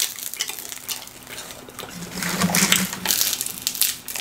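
Crusty pizza torn apart by hand and chewed close to the microphone: a dense run of crackling crunches, busiest around the middle. The crust is baked well done in a pizza oven.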